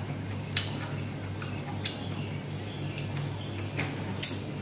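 Eating sounds: about five short, light clicks and smacks as food is picked up by hand from a ceramic plate and chewed, over a steady low hum.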